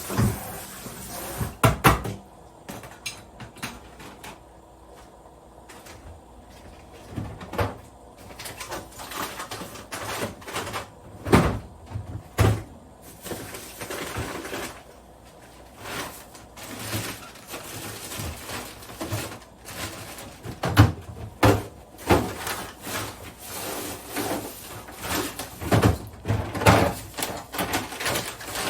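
Kitchen work sounds: irregular knocks and clacks of cookware, dishes and cupboards being handled, some sharp and loud, with softer handling noise between them.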